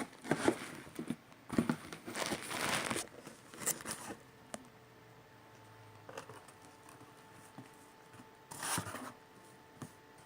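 Packing tape being torn from a cardboard box as it is opened, in several tearing and rustling bursts. The longest lasts about a second and a half, and a last short burst comes near the end.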